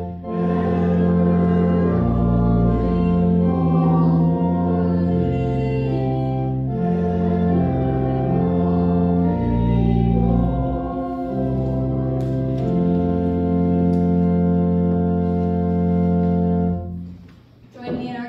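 Church organ playing a hymn in held block chords that change about once a second. The final chord stops about 17 seconds in and dies away in the room's echo.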